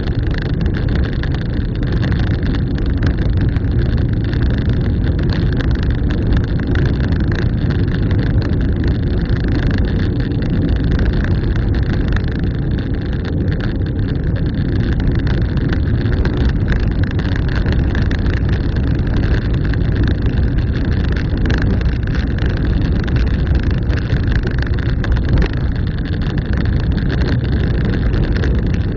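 Steady low drone of a car driving along: engine and tyre noise on the road, holding an even pace throughout.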